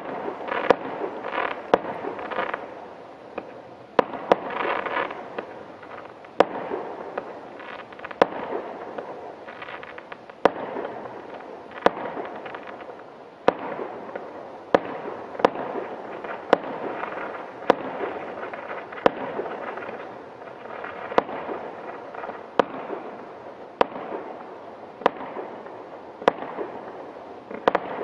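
Aerial fireworks going off in steady succession: a sharp bang about every second, with crackling spreading after many of the bursts.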